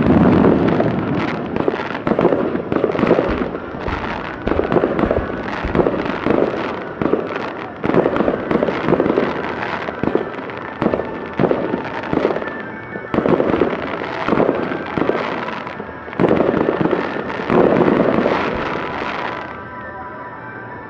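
Aerial fireworks in a star-mine barrage: shells bursting in quick succession, bangs and crackles overlapping without pause. The barrage stops near the end.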